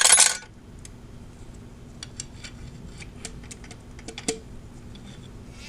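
Metal tools and parts clanking: a loud metallic clatter at the start, then scattered light clicks and a single ringing clink about four seconds in, over a faint steady hum.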